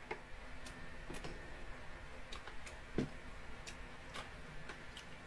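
Faint, scattered small clicks and ticks from eating and handling food at a table, with one slightly louder knock about three seconds in.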